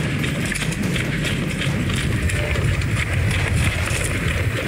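A person running, footfalls and rustling gear over a steady low rumble of wind on the microphone.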